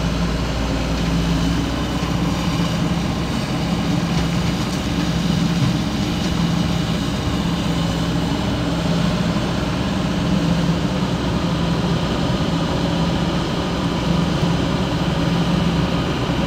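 Heavy diesel engine of an excavator running steadily, with a low hum that swells and fades every second or so.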